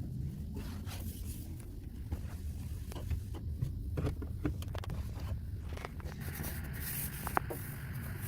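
Rubbing, scraping and scattered small clicks of household cleaning over a low handling rumble, with a brief hiss about seven seconds in.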